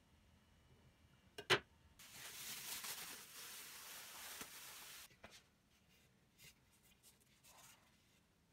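A single sharp knock, then an aerosol can spraying in one steady hiss for about three seconds, cut off abruptly.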